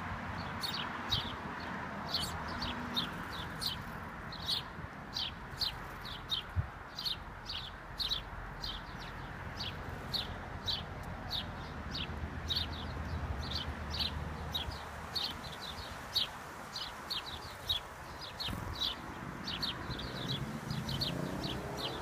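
House sparrows chirping: a steady run of short, falling cheeps, about two a second.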